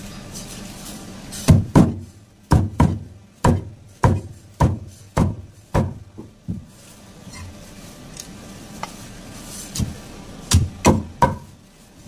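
A heavy knife chopping a tuna crosswise into steaks, the blade cutting through the fish and thudding onto a wooden chopping block. The chops come in a quick run of about a dozen, roughly two a second, then three more near the end.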